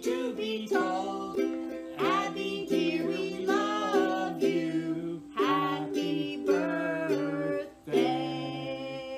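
A man and a woman singing a song together, with instrumental accompaniment.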